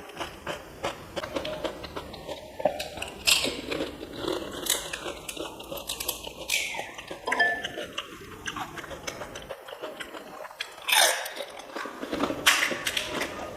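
Close-up crunching and chewing of crisp fried puri snacks (panipuri and raj kachori): the brittle shells crackle in short, irregular bursts between bites, with wet chewing in between.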